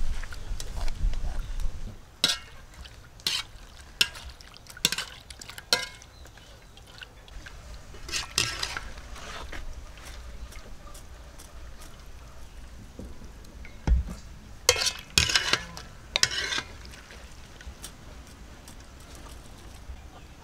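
Shrimp tipped from a metal strainer into a wok of simmering water, with a splash and low bubbling, followed by kitchen clatter: about five sharp knocks and clinks of utensils on metal pots and bowls a second apart, and another cluster of clinks and scrapes later on.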